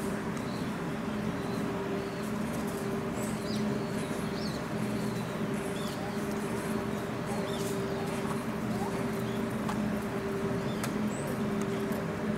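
Steady low background hum, with a few faint high chirps scattered through it.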